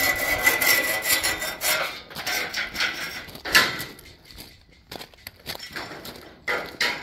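A hand scraper rasping along the edge of freshly cast concrete edging in repeated strokes, ending in one sharp knock about three and a half seconds in. After that come quieter crunching steps on gravel.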